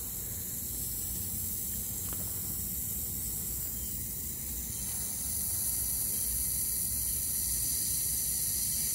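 Garden hose spray nozzle hissing steadily as it showers water onto wood-chip mulch, growing a little louder about five seconds in.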